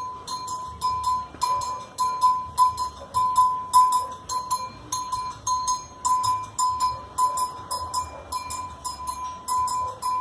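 Candomblé ceremonial percussion: a metal bell struck in a steady pattern about twice a second, over drums and sharp rattling clicks.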